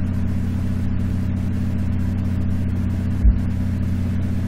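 A steady low hum, as of a motor or mains hum, with one brief low thump a little over three seconds in.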